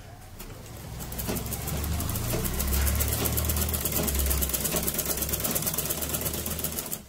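Domestic straight-stitch sewing machine running at a steady speed, its needle mechanism making a rapid, even clatter over a low hum as it stitches folded cloth. It picks up about half a second in and stops abruptly near the end.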